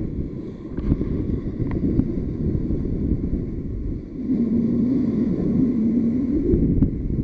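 Wind buffeting the microphone, a loud steady low rumble, with a few faint ticks; from about four seconds in, a wavering low hum rides on top of it.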